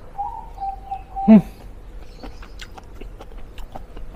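A person chewing mouthfuls of chewy mushroom satay, with faint wet mouth clicks through the second half. Earlier comes a steady whistle-like tone lasting about a second and a half, and the loudest sound is a short low voiced sound about a second in.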